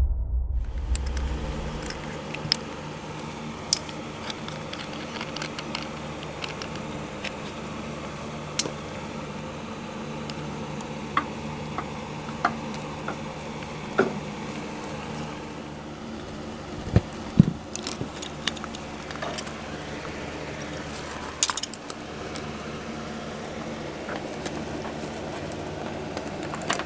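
Brass line-set coupler fittings clicking and clinking against each other and the copper tubing as they are threaded together by hand: scattered light metallic ticks, the loudest a few about two thirds through, over a steady low hum.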